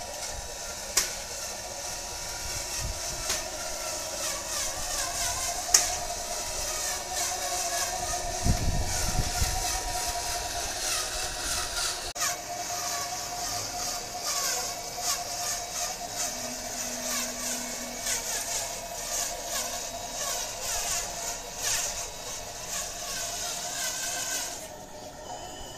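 Electric motors and gear drives of radio-controlled construction models whining steadily, with a few sharp knocks and a low rumble in the first half while the RC excavator loads soil into the dump truck.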